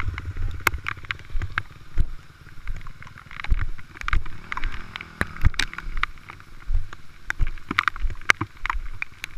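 Dirt bike engine running and rising and falling with the throttle on a rough rocky trail, with frequent sharp knocks and clatter from the bike hitting rocks and wind noise on a helmet-mounted microphone.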